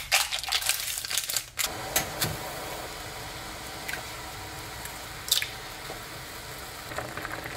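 Foil seasoning packet crinkling as it is torn open and emptied over the pot, then a pot of instant ramen noodles boiling with a steady bubbling hiss. A few light taps come as chopsticks stir the noodles.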